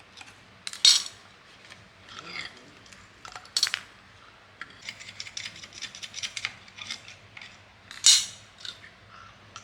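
Metal parts and tools clinking and knocking together as they are handled. There are sharp clinks about a second in, near four seconds and near eight seconds, with a run of light, quick ticks between them.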